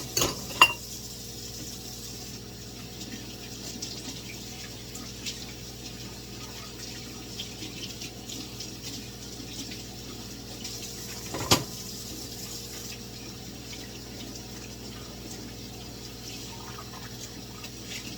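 Kitchen tap running steadily into a sink while dishes are washed, with a few sharp clinks of dishes near the start and another single clink about eleven and a half seconds in.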